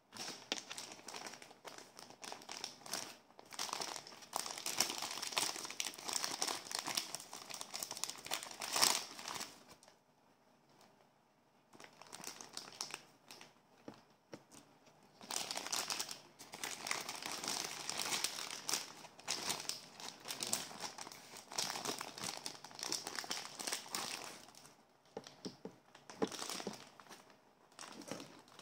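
Clear plastic wrapping crinkling as it is handled and pulled off a toy pistol, in several long stretches with short pauses between.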